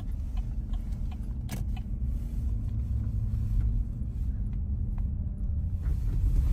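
Car driving, heard from inside the cabin: a steady low rumble of engine and road noise, with a few faint clicks and a sharper tick about a second and a half in.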